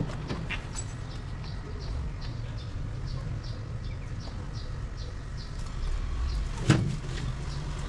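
Background with a steady low rumble and a short, high chirp repeating evenly about three times a second. A single sharp knock sounds near the end.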